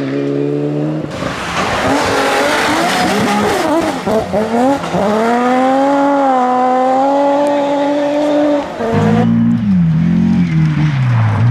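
Rally car on a gravel stage coming through a corner with loud gravel and tyre noise, then accelerating hard: its engine note climbs and holds at high revs. About nine seconds in, a cut to a second rally car, its engine note dropping and rising in steps as it changes gear.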